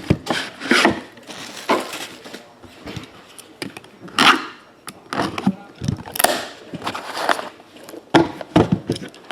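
Trading card box being opened and its contents handled: irregular scrapes, knocks and rustles of cardboard and plastic.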